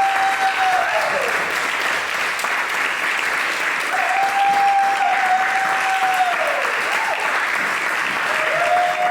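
An audience applauding steadily, with a long, high held cheer from one voice rising over the clapping three times: one ending about a second in, one in the middle, one starting near the end, each dropping in pitch as it ends.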